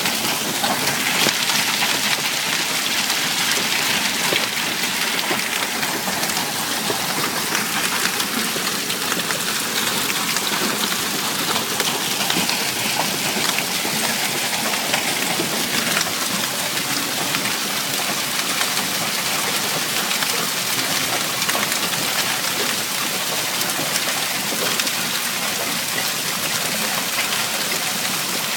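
Hailstones and heavy rain pelting down, a steady dense hiss dotted with many sharp little impacts.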